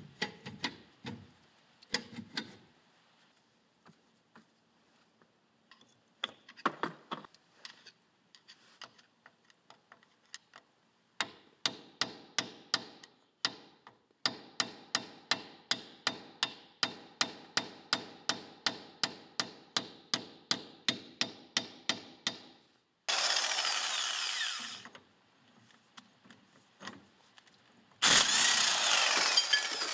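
Metal knocks as the rusty rear brake drum is worked off, then a hammer striking steel at about three blows a second for some ten seconds, knocking out the staked indent on the 40 mm rear hub nut. An impact wrench then runs in two loud bursts of about two seconds each, undoing the hub nut.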